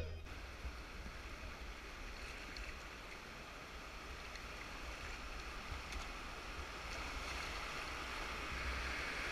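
Faint, steady rush of creek water with a low rumble, slowly growing louder.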